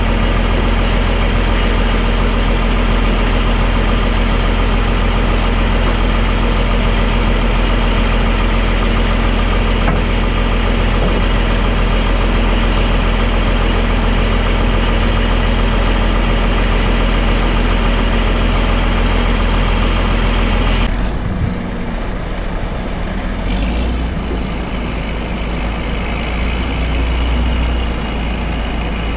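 Caterpillar D6D crawler dozer's diesel engine idling steadily. About two-thirds of the way through, the sound changes abruptly to a different, slightly quieter engine running, the lorry's diesel.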